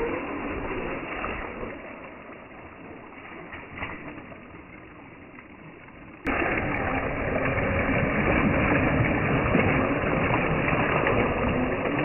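Radio-controlled rock crawler truck driving through shallow running water: a motor whine over splashing water, much louder from about six seconds in.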